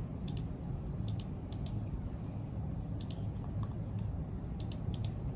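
Laptop keyboard and trackpad clicks, scattered singly and in quick pairs every second or so, over a steady low background hum.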